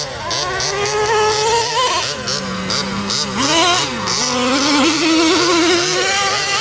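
Traxxas Revo 3.3 nitro monster truck's small two-stroke nitro engine buzzing at high pitch, revving up and down over and over as the truck is driven hard, with a longer climbing rev in the second half.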